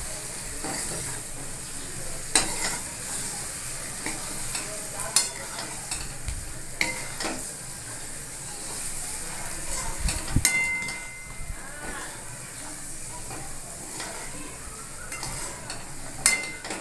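A steel spatula stirs fried soya chunks and potatoes through masala in a metal kadai while the food sizzles in the oil. A few sharp knocks and scrapes of the spatula against the pan stand out.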